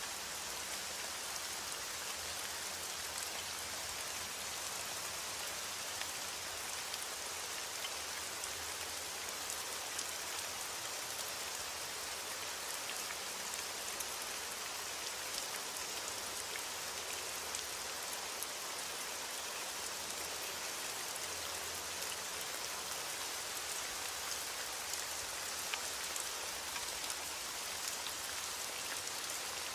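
Heavy rain on a window: a steady, even hiss of rainfall with scattered sharp drop ticks.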